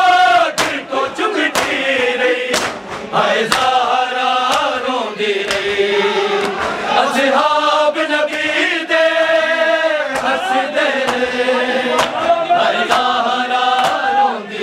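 Men's voices chanting a Punjabi noha (lament) together, with sharp strikes about once or twice a second of matam, hands beating on chests in time with the chant.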